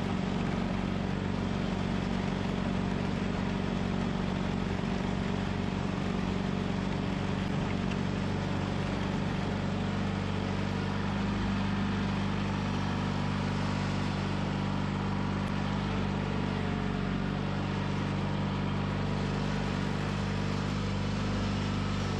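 John Deere 420 garden tractor's Onan twin-cylinder engine running steadily while the tractor pushes snow with its angled front plow blade.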